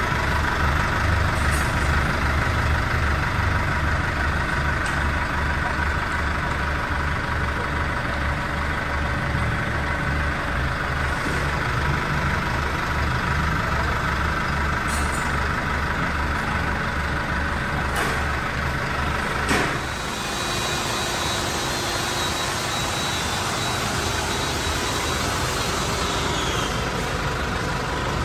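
Isuzu Traga truck's diesel engine idling with its newly fitted Denso air-conditioning compressor running: a deep, even pulsing hum with a steady whine above it. The deep pulsing drops away about two-thirds of the way in, with a few light clicks just before.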